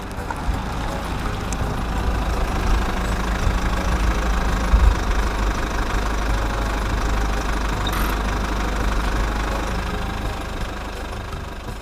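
Motor vehicle engine idling steadily, a low rumble that fades away near the end.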